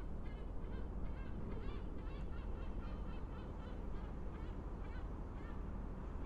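A flock of seabirds calling over and over, short high cries several a second, over a steady low rumble.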